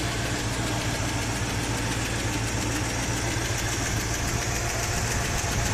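1976 Chevy Blazer's carbureted engine idling steadily under the open hood.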